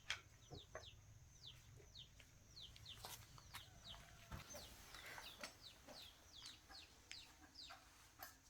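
Faint birds chirping: short downward-sliding chirps repeating a few times a second, with a few sharp clicks between them.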